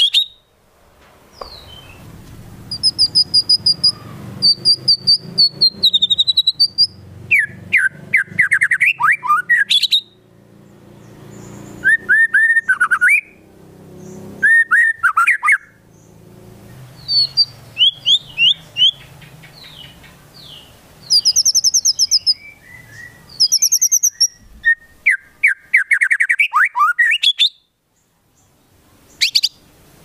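White-rumped shama singing in full voice. It delivers loud bursts of rapid, sharp repeated notes, trills and high whistles, a new burst every few seconds, broken by short pauses. The phrases are its 'isian', fill-ins copied from the calls of other birds such as the konin and kinoi.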